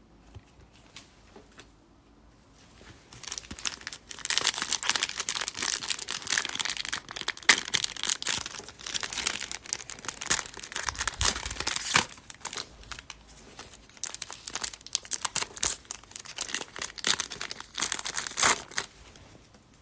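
Plastic-foil trading-card pack wrapper crinkling and tearing as a pack of baseball cards is ripped open, a busy crackling with sharp snaps that starts about three seconds in.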